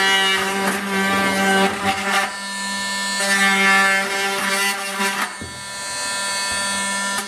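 Oscillating multi-tool running, its blade cutting through a plastic bucket with a steady buzz; the sound dips briefly a little after five seconds in, then picks up again.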